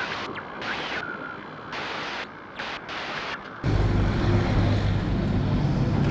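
A glitchy logo-intro sound effect of short hissy swishes with brief gaps, which cuts off about three and a half seconds in. A louder steady low rumble and hum follows, like wind or air-handling noise on a small action-camera microphone.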